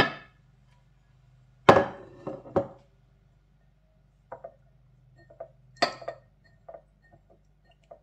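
Glass lid clinking against a glass baking dish as it is lifted off, then a loud ringing clunk and two further knocks as it is set down. Lighter glass clinks and taps follow, with a sharper one about six seconds in.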